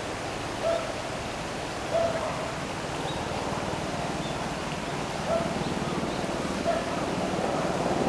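Steady hiss of outdoor river-bank ambience, like running water, with a short mid-pitched animal call repeating four times at irregular gaps of one to three seconds.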